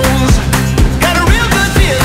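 Background music with a steady beat about twice a second, a bass line and a lead melody.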